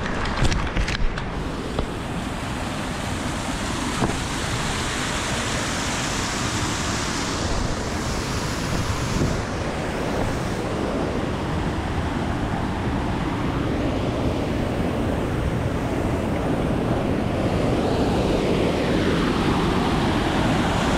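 Wind rushing over the microphone of a moving bicycle rider, a steady roar that grows gradually louder toward the end, with a few light clicks in the first second.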